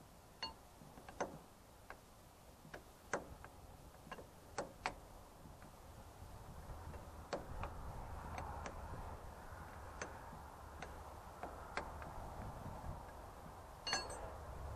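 Irregular sharp metal clicks and clinks of a spanner working the bolts of an Ursus C-330 tractor's hydraulic lift control valve while it is tightened down, with a quick cluster of clinks near the end.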